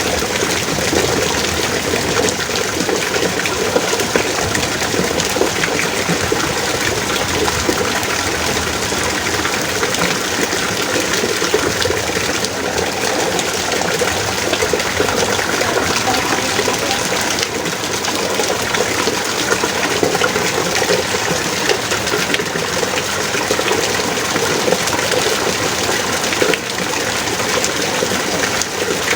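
Heavy rain pouring steadily, a dense, even spatter of drops with no let-up.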